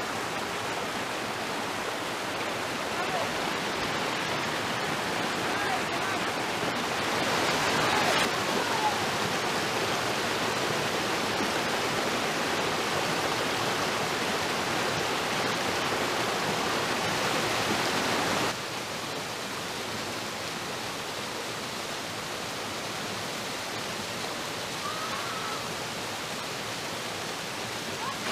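Creek water pouring over a small rocky waterfall: a steady rushing splash. It grows louder several seconds in, then drops suddenly to a softer rush about two-thirds of the way through.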